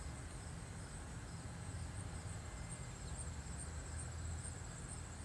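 Insects chirping in a high, evenly pulsing trill over the low, steady drone of distant tractor-pull engines.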